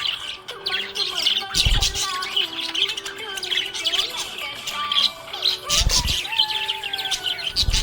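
Budgerigar chirping and warbling continuously in rapid twittering notes. Two low thuds come about two and six seconds in.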